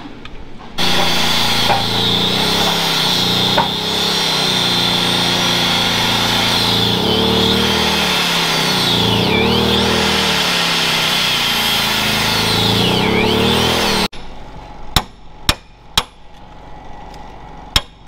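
Angle grinder cutting through a bolt on a manure auger shaft, its speed sagging and recovering as the disc bites. It stops abruptly near the end, and sharp hammer blows follow, about two a second, on a punch driving the cut bolt out of the shaft.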